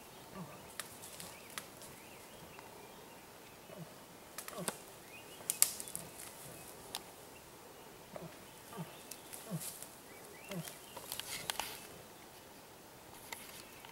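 Black bear moving close through forest undergrowth: scattered sharp snaps and crackles of twigs and brush, the loudest about halfway through and another cluster near the end, over faint short low sounds repeating about once a second.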